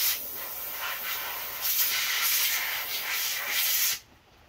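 Compressed air hissing from a blow gun in a series of short blasts, blowing dust and debris off a valve spring, cutting off abruptly about four seconds in.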